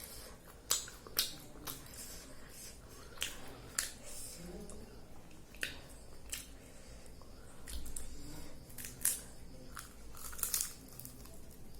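Close-up eating sounds: chewing, with about a dozen sharp, short mouth clicks and bites scattered irregularly.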